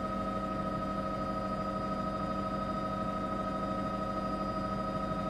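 News helicopter cabin noise: a steady drone of engine and rotor with several constant tones, heard through the crew intercom.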